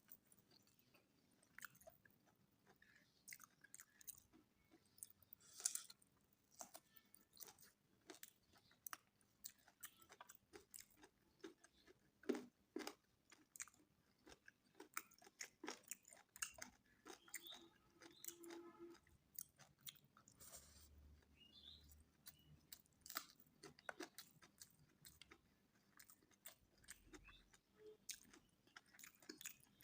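Quiet, close-up chewing of mouthfuls of mutton biryani with raw onion and green chillies: a run of irregular wet mouth clicks and small crunches.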